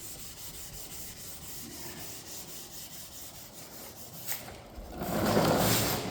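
600-grit wet-and-dry sandpaper rubbed by hand over a plastic headlight lens, wet sanding with water. The rubbing gets clearly louder about five seconds in.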